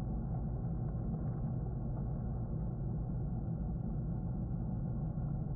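Steady low rumble of aquarium equipment and circulating water, even throughout.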